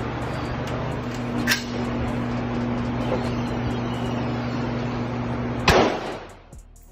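A steady low hum with a light click about one and a half seconds in, then a single Radical Firearms AR-15 rifle shot near the end, the loudest sound, ringing off the indoor range's concrete-block walls.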